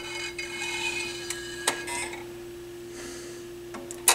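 Pioneer PL-50A turntable running with a steady hum, a few light mechanical clicks from the tonearm and its automatic mechanism, and a sharper click near the end.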